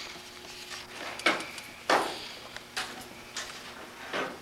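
Handling noise: several sharp knocks and clicks scattered through, with light rustling between them.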